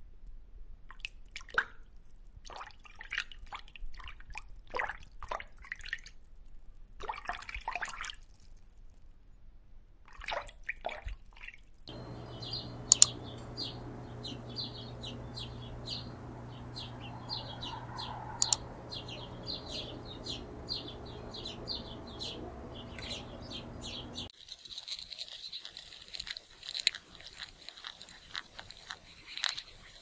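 Water dripping and bubbling in short scattered sounds, then a bird calling with many short high chirps over a low steady hum.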